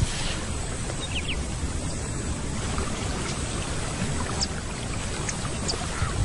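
Water splashing and sloshing steadily as lions move through shallow floodwater, with a few brief high chirps.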